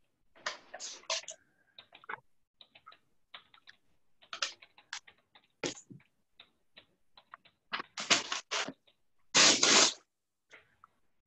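Computer keyboard typing: irregular key clicks of a sentence being typed, heard over a video-call microphone. A few louder, longer bursts of noise come about a second in and around eight and nine and a half seconds in, the last the loudest.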